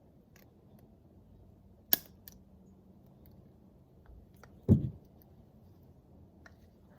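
Engine parts being handled on the bench: a sharp metallic click about two seconds in and a louder, duller knock a little before five seconds, with faint room tone between.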